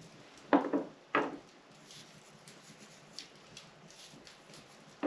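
Two short knocks of small spice dishes set down on a wooden table, about half a second apart, then only faint light ticks.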